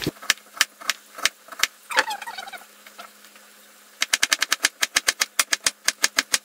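Chef's knife chopping a carrot on a plastic cutting board: a few separate cuts at first, then from about four seconds in a fast, even run of chops, several a second.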